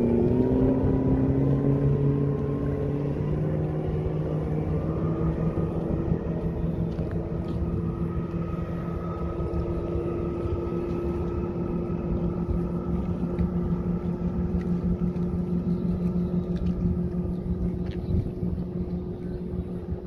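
An engine speeding up, its pitch rising over the first few seconds, then running at a steady pitch.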